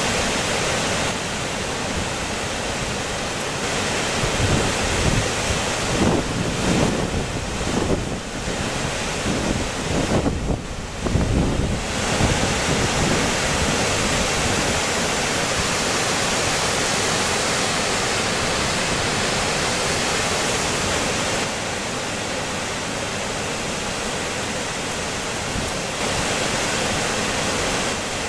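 Steady, loud rush of Reekie Linn, a large waterfall in full flow. Gusts of wind buffet the microphone with a low rumble between about four and twelve seconds in.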